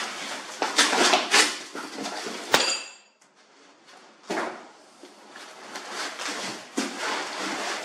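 Cardboard box and packing foam rustling and scraping as parts are lifted out during unpacking, with a sharp click and a brief ring about two and a half seconds in.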